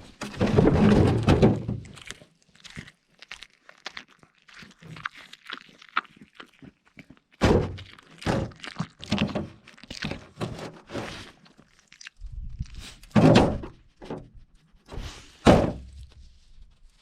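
A dog chewing and eating food close to the microphone: irregular clicks, smacks and knocks from its jaws and mouth, with a few louder, fuller bursts.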